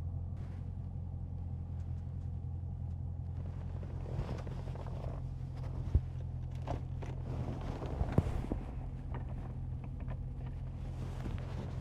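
Steady low drone of a Dodge Scat Pack's 6.4-litre V8 and tyres heard inside the cabin while cruising, with two short sharp knocks, about six and eight seconds in.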